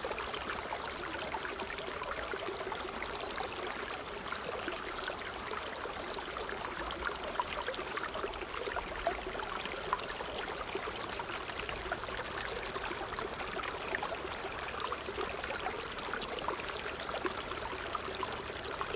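Small creek cascading over rocks: a steady rush of running water with many small splashes and gurgles through it.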